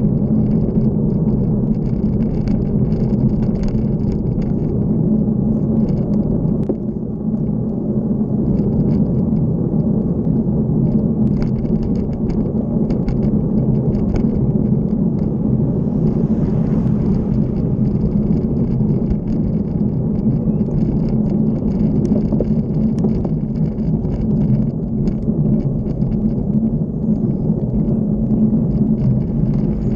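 Steady low rumble of wind and road vibration on a handlebar-mounted camera as a bicycle rolls along a tarmac road.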